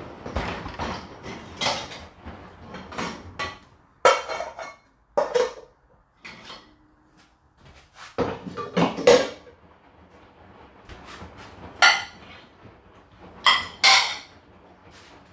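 Dishes and cutlery clattering and clinking as they are loaded into a dishwasher's racks. A busy run of knocks comes in the first few seconds, then scattered louder clinks.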